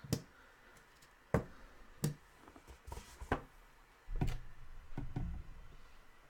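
Scattered sharp clicks and taps from handling on a tabletop, with a duller thump about four seconds in and another about a second later.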